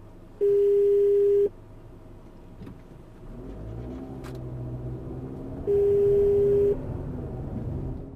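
Two loud beeps of one steady tone, each about a second long, a little over five seconds apart, over a car engine that rises as the car pulls away in the second half.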